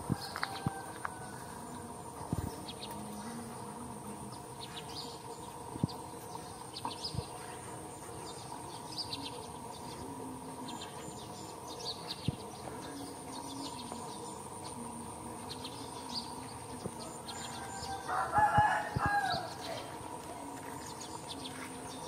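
A rooster crows once, late on, over a steady high insect buzz and scattered bird chirps.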